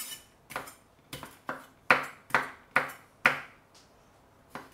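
A kitchen utensil knocking sharply and repeatedly, about two strikes a second, each with a short ring. The strikes grow louder through the middle, pause near the end, then come once more.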